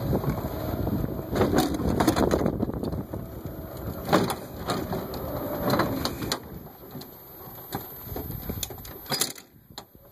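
Golf cart rolling over a bumpy dirt yard: a steady rumble with scattered knocks and rattles, louder in the first half and easing off later.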